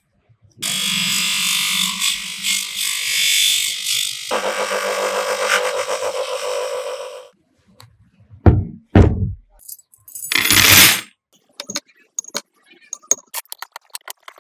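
Restoration workshop noises: several seconds of steady rubbing or scraping that changes tone about four seconds in, then two loud thumps, a short burst of noise, and a run of small clicks and rattles.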